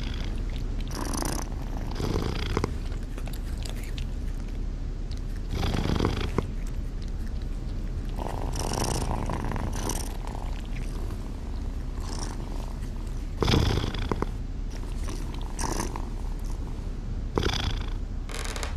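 Domestic cat purring steadily, with several short cat calls over it at intervals.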